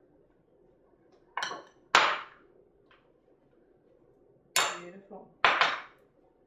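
Metal spoon clinking against a glass bowl while scooping frosting into a piping bag. There are two pairs of knocks about three and a half seconds apart, each a softer scrape followed by a sharp clink.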